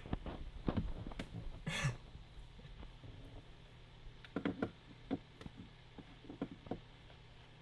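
Faint scattered clicks and knocks over a steady low electrical hum, with one short breathy rush about two seconds in.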